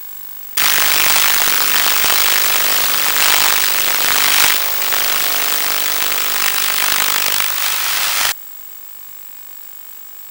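Electric motor and propeller of an FPV model plane heard over the video link, a loud rough whirr with a steady hum in it. It cuts in suddenly about half a second in and cuts out just as suddenly about eight seconds in, leaving a faint hiss and whine.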